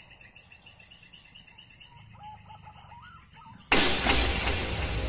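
Birds calling, one with a quick repeated chirp, over a steady high-pitched insect drone. About three and a half seconds in, a sudden loud crash cuts in and rings on, giving way to music.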